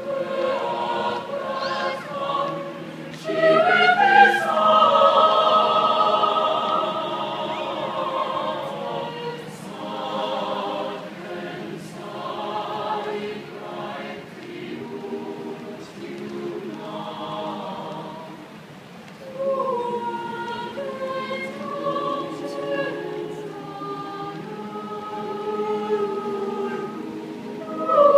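Mixed-voice chamber choir singing a cappella in several parts, swelling loud about four seconds in, quieter through the middle, and building again about two-thirds of the way through.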